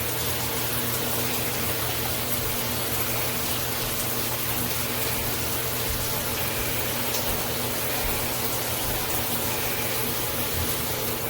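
Water spraying steadily from a rain shower head and handheld shower combo onto the shower, a continuous even hiss with a faint low hum beneath it.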